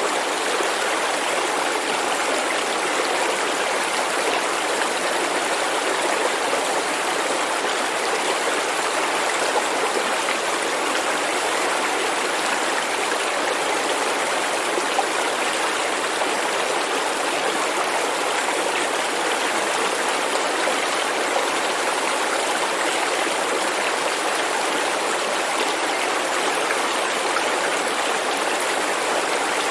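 Stream rushing over stones, a steady even rush of water with no change in level.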